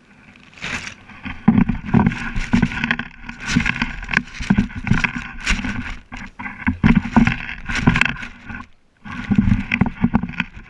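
Close rustling and crackling of tall grass stalks brushing and scraping against the camera, with many irregular knocks and scrapes, stopping briefly near the nine-second mark before starting again.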